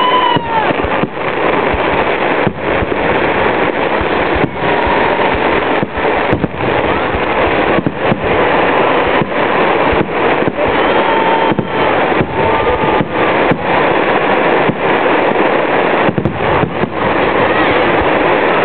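Fireworks display going off in a dense, continuous barrage of bangs and crackle, loud throughout, broken by many brief gaps of a fraction of a second.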